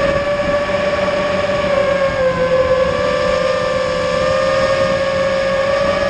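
The brushless motors and propellers of an FPV quadcopter give a steady whine with a buzzing, noisy edge. The pitch dips slightly about two seconds in, then holds steady.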